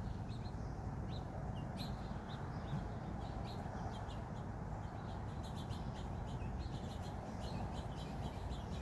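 Small birds chirping in many short high notes over a steady low rumble.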